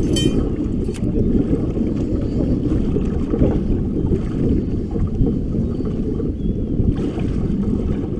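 Steady wind rumbling on the microphone, with water slapping against the hull of a boat on choppy water.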